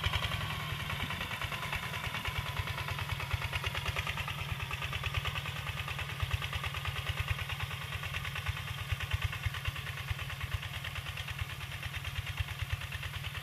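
A walking tractor's single-cylinder diesel engine runs steadily under load while it pulls a plough through dry soil. It makes a rapid, even beat of low chugs.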